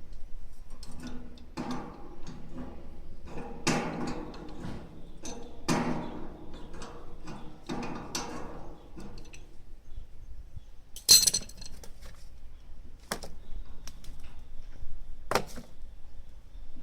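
Hard objects being handled: irregular knocks and scraping, then three sharp clinks spaced about two seconds apart, the first the loudest.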